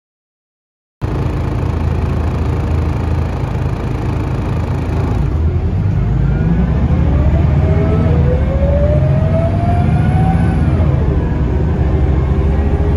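Inside a Scania L94UB city bus with a ZF automatic gearbox: the diesel engine runs with a deep drone as the bus pulls away. A whine rises steadily with speed from about six seconds in, drops about ten seconds in, then starts rising again near the end.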